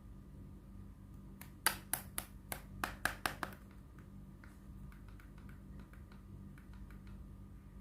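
A quick run of about eight sharp clicks over two seconds, then fainter scattered ticks, over a steady low hum.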